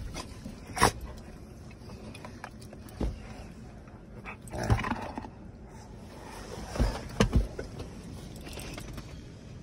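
Large mastiff dogs clambering about the seats of an SUV: a run of about six thumps and knocks from paws and bodies against the seats and a plastic bucket, the loudest three close together near the end, with rustling in between.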